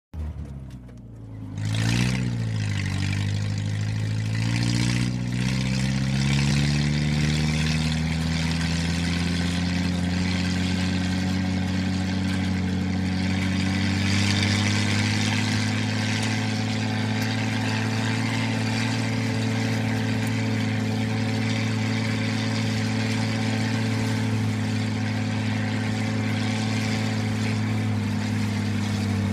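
A vehicle's motor running with a steady pitched hum. A knock sounds about two seconds in, then the pitch climbs slowly for about ten seconds as it speeds up, and holds steady after that.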